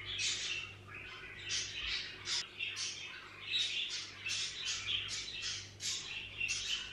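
Pet parakeets chattering, a continuous stream of short high-pitched calls, several a second.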